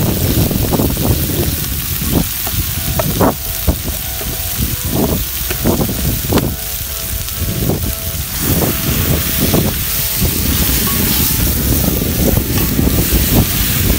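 Mutton rib pieces frying in hot oil in an aluminium pot over a wood fire: a steady sizzle with sharp pops and crackles, busiest in the first half. Wind rumbles on the microphone, and near the end the meat is stirred with a wooden spatula.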